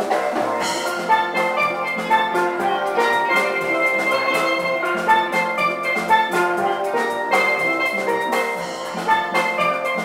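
Steel band playing live: several steel pans struck with mallets ring out quick melodic notes over a drum kit keeping the beat with drums and cymbals.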